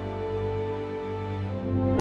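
Slow, sad background music: sustained chords held over a deep low drone.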